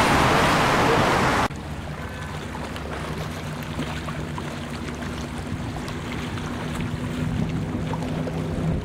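Onboard rush of wind and engine noise on the running powerboat that cuts off suddenly about a second and a half in. It is followed by the steady drone of the Pantera 36's twin Mercury 496 HO big-block V8s heard across the water, growing louder as the boat approaches at speed.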